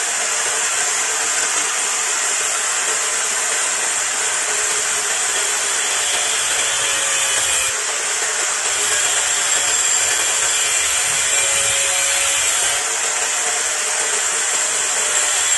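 Handheld angle grinder running against a curved metal tube, a loud, continuous grinding hiss. The motor's pitch sags slightly now and then as the disc bites.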